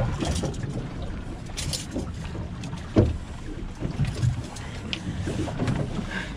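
Sportfishing boat at sea: a steady low rumble of boat and water, with scattered knocks on deck and one sharp knock about three seconds in.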